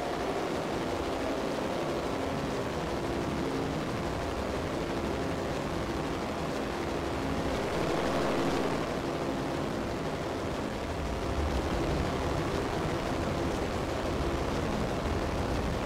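Digital audio feedback loop in Ableton Live, routed through an effects chain and held in check by a hard limiter on the master. It makes a dense, noisy drone with faint steady tones underneath. It swells slightly about halfway, and more low rumble builds in over the second half.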